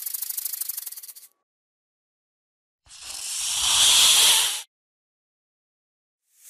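Snake hissing. First a fast rattling hiss that fades out in the first second or so. Then a hiss swells for nearly two seconds, sitting high in pitch, and cuts off abruptly. Another hiss begins right at the end.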